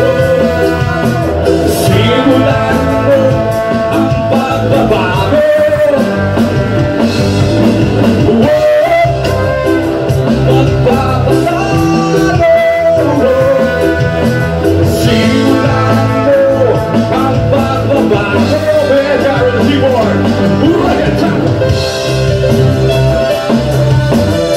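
Live reggae band playing: trombone and trumpet lines over electric guitar, keyboard and drums, with a voice singing.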